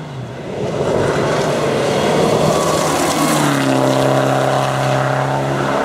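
Mitsubishi Lancer Evolution X rally car at speed on a gravel stage. At first it is a loud rushing noise of engine and tyres on gravel that swells in the first second. From a little past halfway the engine note comes through steady, held at high revs.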